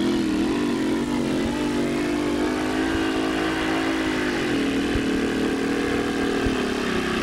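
Supercharged engine of a Chevrolet two-wheel-drive super modified pulling truck running hard under load as it drags the sled, its note holding level and then shifting in pitch about four and a half seconds in. This is the run on which the engine went sour halfway down the track, which the commentator takes for a rod letting go and blowing a hole in the block.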